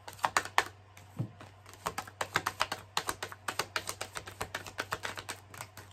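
Tarot cards being shuffled by hand: a quick, uneven run of light card clicks and slaps, several a second.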